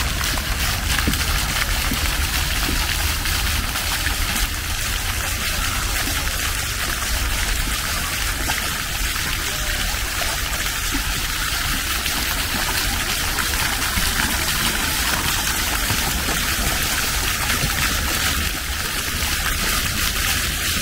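Water from small fountains splashing and trickling steadily, with a low rumble underneath.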